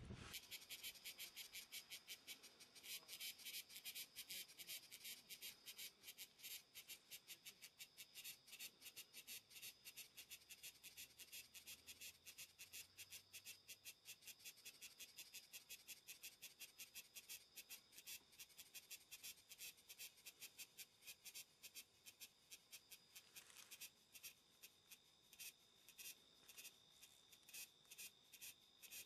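Faint insects chirping in a rapid, high-pitched pulsing rhythm of about four chirps a second, steady throughout.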